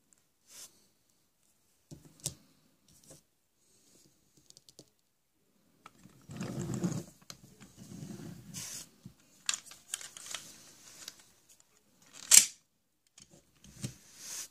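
Plastic toys being handled: scattered clicks and taps, with stretches of rustling in the middle. One sharp, louder click comes near the end.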